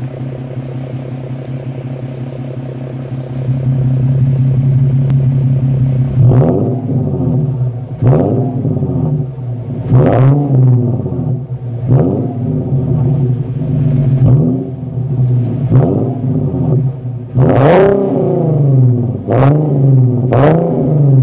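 Infiniti Q50 3.7's 3.7-litre V6 running through a muffler-deleted exhaust: it idles steadily, then is revved about nine times in quick blips roughly every two seconds, each rising in pitch and dropping back to idle.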